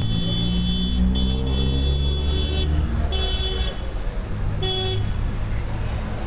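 Vehicle horns honking in street traffic, four times: two long toots, then two short ones. Under them runs a steady engine rumble whose pitch rises over the first couple of seconds.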